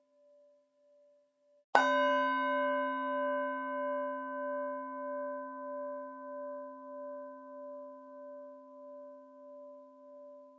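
A Buddhist bell struck once, about two seconds in, then ringing with several tones at once and a slow, regular pulsing wobble as it slowly fades. Before the strike, the faint tail of an earlier ring is still sounding.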